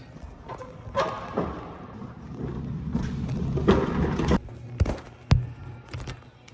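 A series of knocks and thumps over a low steady hum, with two sharp clicks about five seconds in.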